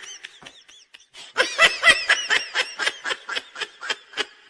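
Comic laugh sound effect: high-pitched snickering laughter, soft for the first second, then a quick run of about six ha-ha pulses a second.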